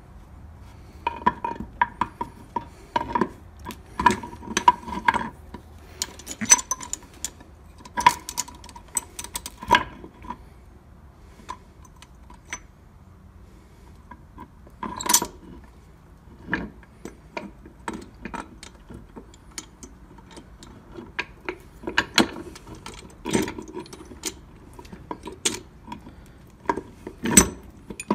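Steel gears and shaft of a 1953 Dodge three-speed manual transmission clinking and knocking against each other and the case as they are worked into place by hand: an irregular run of sharp metallic clicks, many ringing briefly, with the loudest knocks about halfway through and near the end.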